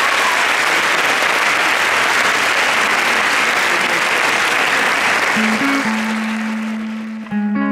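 Audience applause, dying away over the last couple of seconds as the first held notes of a guitar piece come in about five seconds in.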